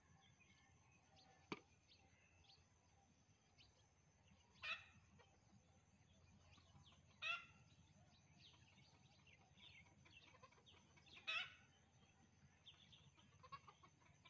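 A chicken calling three times, a few seconds apart, each call short, faint against a quiet rural background with scattered small bird chirps. A single sharp click comes about a second and a half in.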